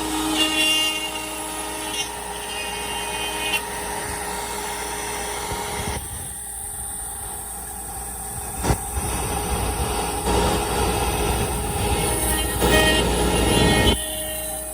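CNC router spindle running with a steady whine while its end mill cuts through wood, the cutting noise swelling and easing as the tool moves along the toolpath.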